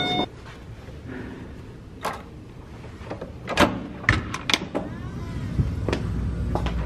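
Clicks and knocks of a hotel room door's electronic key-card lock and handle being worked, several sharp clicks in quick succession, then the door opening near the end with a low hum coming up.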